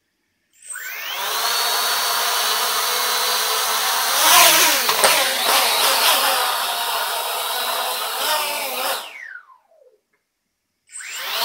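A small DIY quadcopter's four electric motors and propellers spin up with a rising whine about half a second in, then run at a wavering pitch, louder for a couple of seconds in the middle. They wind down with a falling whine and stop, then spin up again just before the end.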